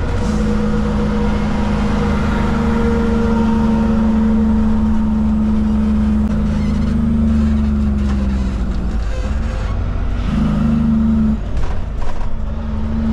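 Cummins diesel engine of a Kenworth K200 cab-over truck, heard from inside the cab, running steadily under way. About two-thirds of the way through, its pitch falls and it breaks off briefly twice, as the truck slows and the driver changes down through the gears.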